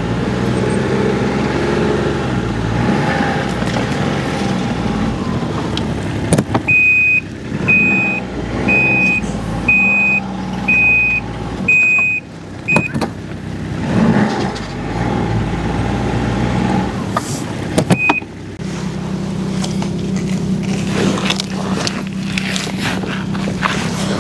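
A vehicle or machine engine running steadily, its note shifting a little past the three-quarter mark. In the middle a high-pitched beep repeats about once a second for some six seconds, like a warning or reversing alarm, with one more beep later.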